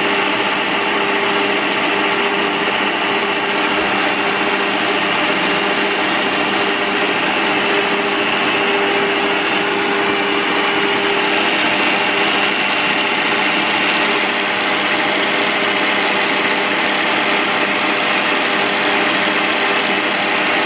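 Electric stand mixer's motor running at a steady hum, its whisk beating egg whites and sugar into meringue.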